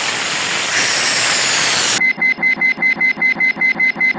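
A hissing noise for about two seconds, then rapid high-pitched electronic beeping, about six beeps a second, from a cartoon sound effect.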